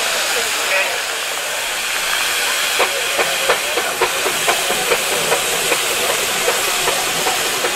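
Steam traction engines hissing steam. About three seconds in, a slow, even chuffing starts, two to three beats a second, from a traction engine's exhaust as it drives along.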